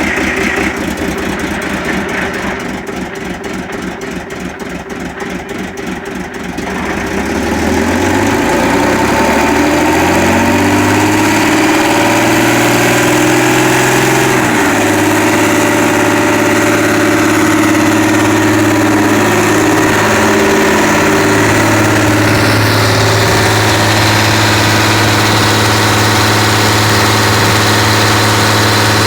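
Small gasoline engine driving an air compressor, primed and just started, running with a fast, uneven pulsing at low speed. About seven seconds in it speeds up over a few seconds and settles into steady running, with a couple of brief dips in speed.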